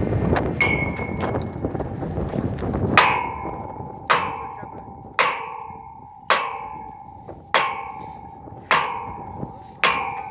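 A hammer striking a steel well pipe seven times, about once a second, each blow leaving a clear metallic ring that fades before the next. Before the first blow, a few seconds of the crane truck's engine running.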